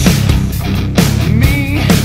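Loud heavy rock music with a strong beat.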